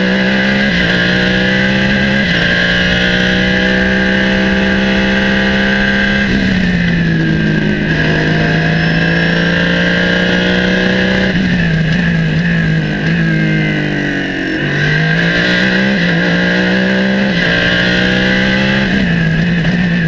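BMW V8 of a Norma M20 FC prototype race car at full throttle, heard from its open cockpit. The revs climb and step down with quick upshifts, then fall through downshifts under braking for corners; this happens several times.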